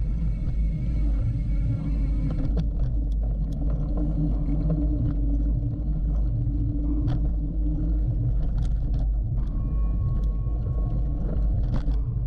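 Steady low rumble of wind on the microphone and tyres rolling over a dirt trail as a hardtail mountain bike is ridden at speed, with scattered clicks and rattles from the bike over bumps.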